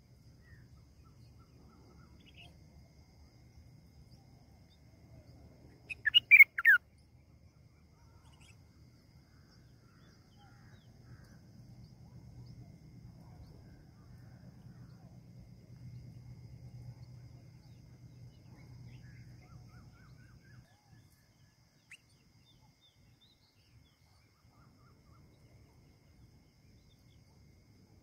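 Red-whiskered bulbul calls: a short burst of three or four quick, sharp notes about six seconds in, with a few faint chirps later, over a faint low rumble in the middle stretch.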